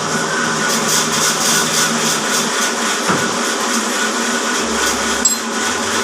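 Horizontal band sawmill running, a steady mechanical hum with several held tones over a broad hiss, and one sharp click about five seconds in.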